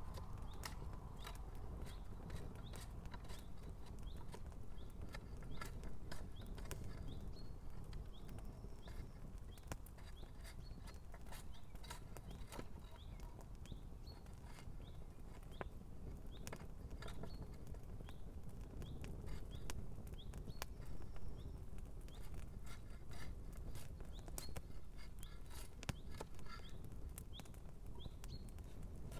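Campfire crackling, with frequent irregular sharp pops over a steady low rush of the fire, as a pair of shoes burns in it.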